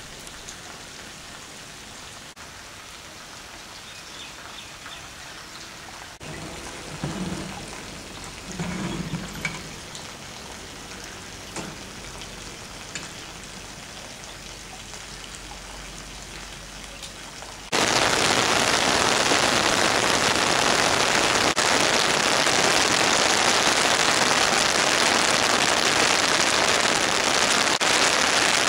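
Steady rain, a soft even hiss, with a couple of brief low sounds about a third of the way in. A little past halfway it cuts suddenly to much louder, heavy rain, a dense hiss that holds steady.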